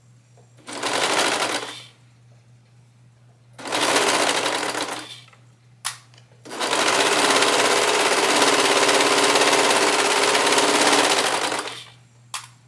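A Brother serger (overlocker) stitches in two short bursts of about a second each, then runs steadily for about five seconds; a brief click falls between the runs and another near the end. The stop-start stitching comes as the fabric is turned by hand around a curve.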